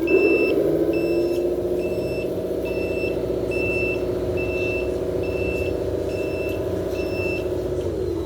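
RC dump truck's sound module sounding reversing beeps, a short high beep about once every three quarters of a second, as the truck backs up. Under the beeps runs a steady motor hum that rises as it sets off and drops away as the beeping stops shortly before the end.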